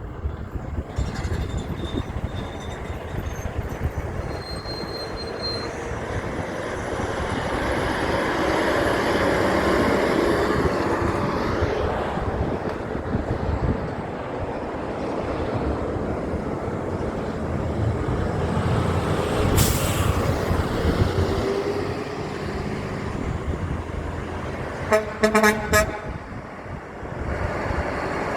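Heavy truck passing close by with its engine and tyre noise swelling and fading, a sharp burst of noise about two-thirds of the way in, and a quick series of about five short air-horn blasts near the end.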